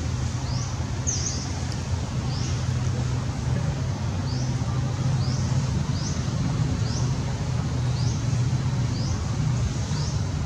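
A steady low engine rumble runs throughout, with a short high rising chirp repeated about three times every two seconds above it.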